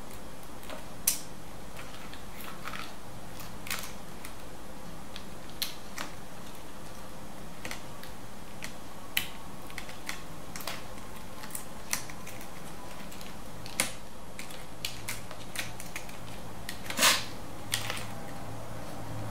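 Scattered small clicks and taps of hands handling a laptop's motherboard and internal parts as it is wobbled out among its cables, over a steady background hiss. One knock comes about a second in, and the loudest near the end.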